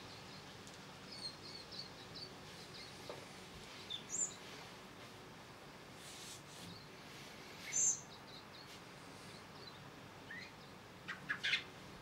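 Silvereyes chirping: a scatter of thin, high, short notes, with a few louder calls about four and eight seconds in and a quick cluster of sharp notes near the end.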